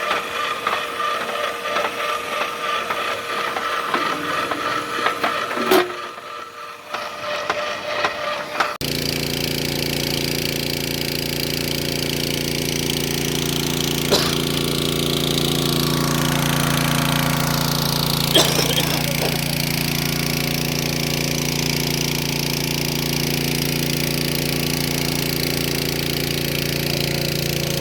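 Mini rotary borewell drilling rig running. For the first nine seconds or so it clatters unevenly; then, after an abrupt change, it settles into a steady engine hum.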